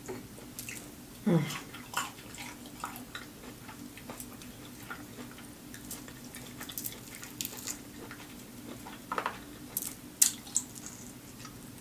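Close-miked eating of crispy lemon pepper chicken wings: wet chewing and lip smacking with many scattered sharp clicks. A short falling tone about a second in, all over a steady low hum.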